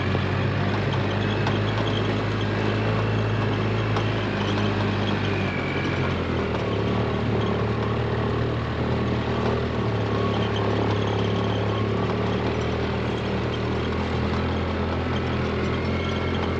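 Vehicle engine running steadily at low speed, its pitch dropping slightly about six seconds in.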